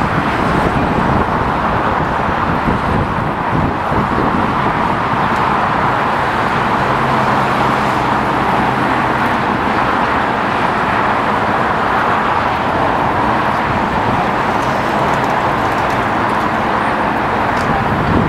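Boeing 787 Dreamliner's turbofan engines running at taxi power, a steady rushing jet noise with a faint low hum in the middle.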